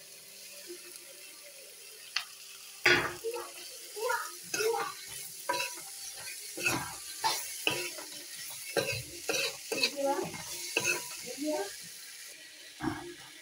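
A cooking spoon stirring and scraping round gourd (tinda) and freshly added tomato pieces around a non-stick wok, in repeated short strokes about every half second, over a low sizzle of the vegetables frying. The first three seconds hold only the low sizzle and a faint click before the stirring starts.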